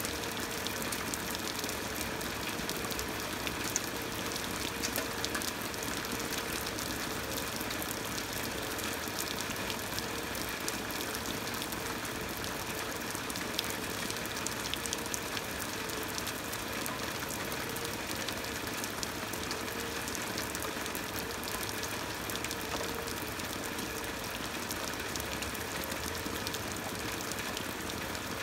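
Steady rain falling into shallow standing floodwater and onto wet ground: an even hiss made of countless small drop impacts.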